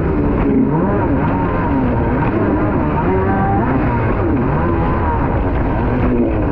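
Kawasaki 650SX stand-up jet ski's two-stroke twin engine running hard, its pitch rising and falling again and again as the hull bounces through chop. A constant rush of water and wind runs underneath.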